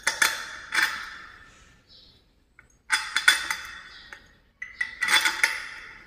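Metal bolt clinking against a ceiling fan's steel downrod and mounting bracket as it is worked through the rod: three bursts of light metallic clinks that ring briefly, at the start, about three seconds in and about five seconds in.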